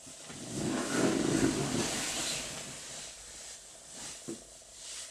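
A rustling, hissing noise close to the microphone, loudest about a second in and fading over a couple of seconds, then a single click about four seconds in.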